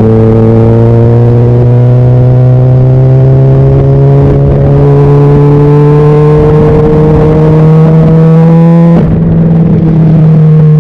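Honda CBR600RR's inline-four engine pulling steadily, its pitch climbing slowly for about nine seconds, then changing abruptly before it runs on at a steady note.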